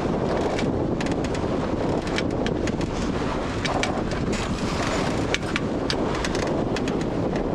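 Wind buffeting the microphone of a camera aboard a sailboat under sail, a steady dense rumble and rush, with many brief sharp ticks scattered through it.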